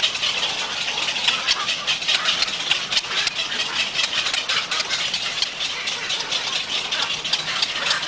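Rapid, continuous clicking chatter of a nesting heron colony, many birds calling at once.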